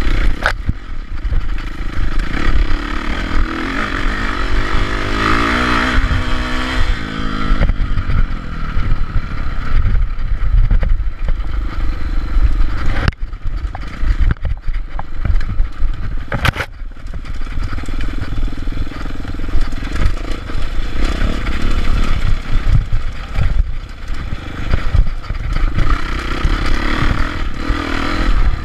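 Dirt bike engine revving up and down as it is ridden hard along a rough trail, over a heavy low rumble. Its pitch climbs steeply from about four to seven seconds in. Sharp knocks come just after the start and twice in the middle.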